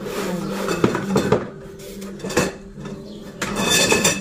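Parts of a flat-packed shoe stand being handled and set down on a tiled floor: several sharp knocks and clinks, then a ringing clatter near the end.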